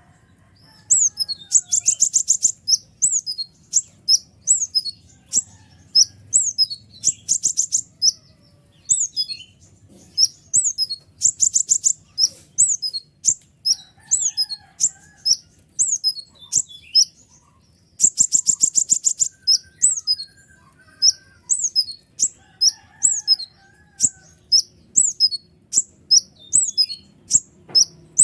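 Kolibri ninja, a small sunbird, singing hard: a long run of sharp, high, down-slurred chirps repeated several times a second. Fast buzzy trills break in about two seconds in, at about seven seconds and around eighteen seconds.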